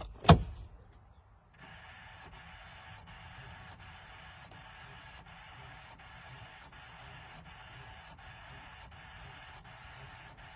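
A sharp knock, then the fuse panel of a 2004 Buick Rendezvous clicking faintly and regularly, about once every 0.7 s, over a steady hiss. The clicking comes when the door is opened on a car that won't start without a jumper, a symptom of its electrical fault.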